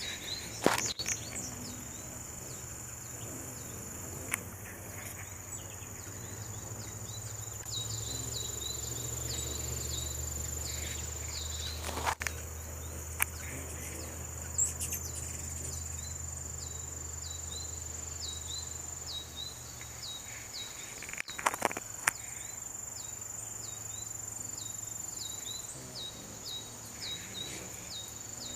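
Outdoor insect chorus: a steady high trill with a repeating chirp beneath it, about two chirps a second. A low hum runs through the first two-thirds, and there are a few sharp clicks.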